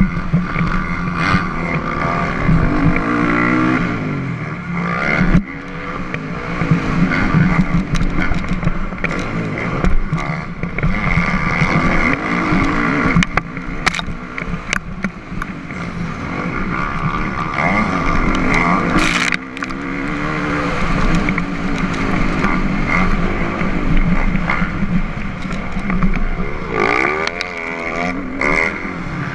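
Dirt bike engine heard up close from the bike being ridden, revving up and dropping back over and over as the rider works the throttle and gears around a motocross track.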